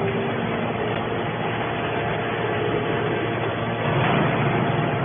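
Hydraulic baling press running with a steady machine noise, getting a little louder about four seconds in.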